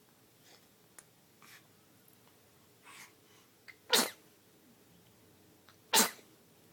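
Two short, sharp sneezes from a ten-week-old, about two seconds apart, with faint breathy sniffs before them.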